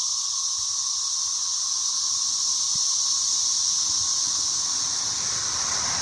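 Steady, unbroken screaming chorus of thousands of periodical cicadas, with a car going by on a nearby road toward the end.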